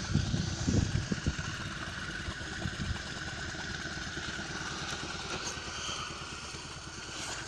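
The karakat's two-cylinder Oka car engine idling steadily, with a few low thumps in the first second or so.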